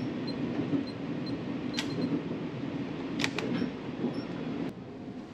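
Steady running rumble of the Sunrise Izumo/Seto sleeper train heard from inside the carriage, with a few sharp clicks as a compartment door's lock lever and latch are worked. After a last click near the end the rumble is a little quieter.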